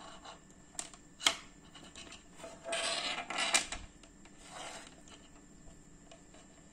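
Small clicks and rubbing from a smartwatch and its magnetic charging cable being handled on a table: two sharp clicks in the first second and a half, then a longer rub about three seconds in and a shorter one a little later.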